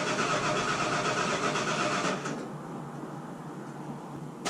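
1979 Ford F-250 pickup's engine running, dropping quieter about two seconds in.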